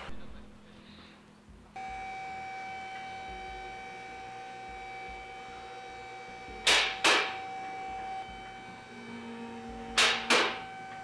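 A two-post vehicle lift raising a car: its electric hydraulic pump hums steadily from about two seconds in. Two pairs of sharp clacks come over the hum, about three seconds apart.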